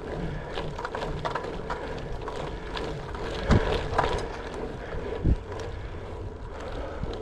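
Wind buffeting the microphone over the steady rumble of a gravel bike rolling on a gravel road, with a few sharp knocks, the loudest about three and a half seconds in and another just after five seconds.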